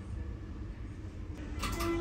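Berlin U-Bahn F-type train heard from the driver's cab: a low steady rumble, with a few clicks about a second and a half in and a steady multi-note tone setting in just before the end.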